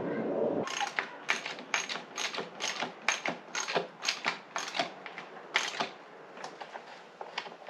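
Ratchet wrench clicking in a steady rhythm, about two clicks a second, as it turns a fastener on a Stanley chainsaw's engine, fading to a few fainter clicks near the end.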